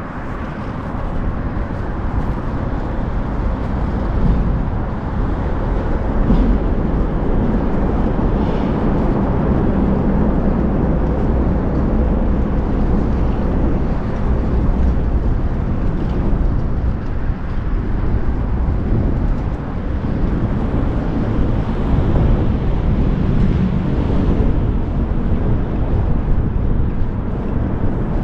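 Loud, steady rush of wind buffeting a camera microphone on a moving bicycle, mixed with road and traffic noise, swelling and easing as the speed changes.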